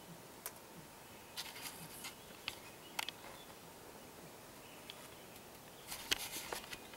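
Quiet forest background with scattered short, sharp crackles and snaps, bunched about one and a half to three seconds in and again near the end.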